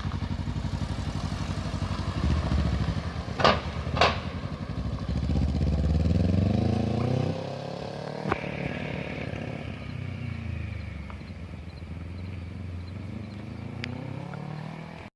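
Engine idling with a fast even pulse, revved up for a few seconds and then falling back toward idle. Two sharp clicks come about three and a half and four seconds in.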